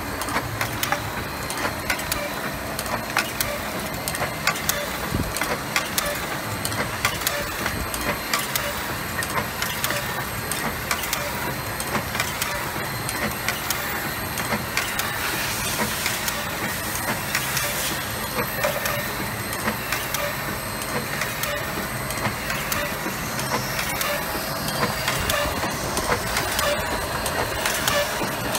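Spoke-nipple forming machine running: a steady mechanical clatter of rapid, closely spaced clicks and knocks.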